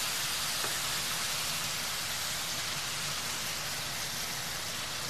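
Chicken pieces sizzling on a hot grill pan as a honey apricot glaze is brushed over them: a steady hiss.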